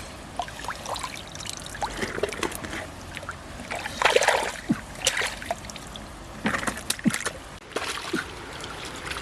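Water splashing and trickling, with louder splashes about four, five and seven seconds in.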